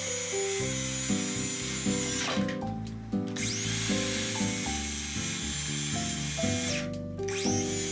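Makita circular saw cutting through a flooring plank with a high steady whine. The motor cuts out twice, about a third of the way in and near the end, and each time spins back up with a rising whine. Background music with a melody plays throughout.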